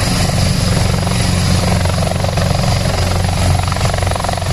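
Large military helicopter hovering low over the ground, its rotor making a loud, steady, rapid chop over a continuous turbine rush.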